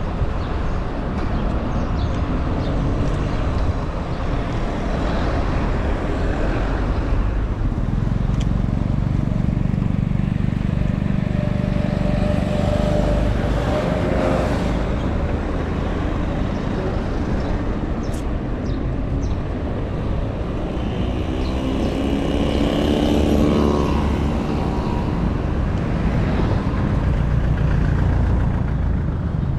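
Street traffic heard from a moving bicycle: cars, vans and motorbikes pass close by over a steady low rumble, with engines swelling and fading about halfway through and again about three quarters of the way in.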